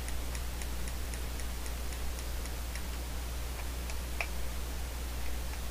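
Steady light ticking, about four ticks a second, over a low electrical hum, with one sharper click about four seconds in.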